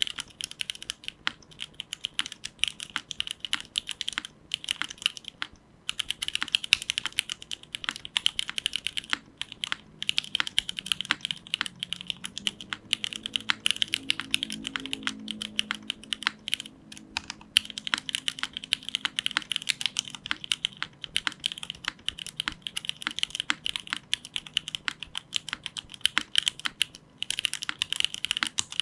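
Continuous typing on a Krush65 mechanical keyboard with unlubed Cherry MX2A Black linear switches on lighter 50 g springs, an aluminium plate, an O-ring mount, no foam, and GMK Striker keycaps. It makes a dense, fast clatter of keystrokes with a couple of brief pauses.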